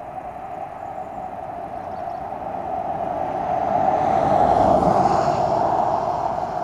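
A road vehicle passing by, growing louder to a peak a little past halfway and then fading away.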